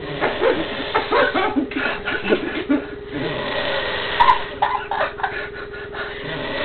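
A sleeping man snoring, with throaty snorts, under low voices.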